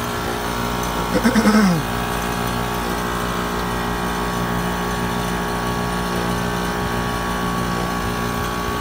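Air-conditioning equipment running with a steady, even mechanical hum at a constant pitch.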